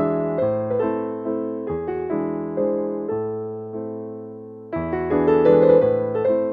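Background music: a gentle piano melody of notes that fade away. There is a brief lull about four and a half seconds in, then a louder phrase.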